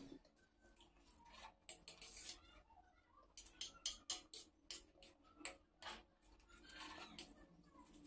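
Faint, irregular clicks and ticks of a metal fork tapping and scraping a steel plate while gathering egg chow mein, mixed with wet chewing sounds.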